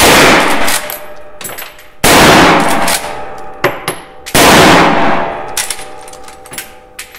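Three rapid shots from a Winchester Model 94 lever-action carbine in .30-30, about two seconds apart. Each shot is followed by the metallic clack of the lever being cycled to eject the case and chamber the next round.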